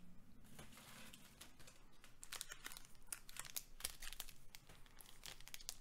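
Crinkling of a Magic: The Gathering booster pack's foil wrapper being handled, heard as a scatter of small crackles, along with light handling of a stack of trading cards.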